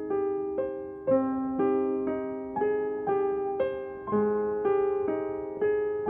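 Background piano music: a gentle melody of single notes struck about twice a second, each left to ring and fade.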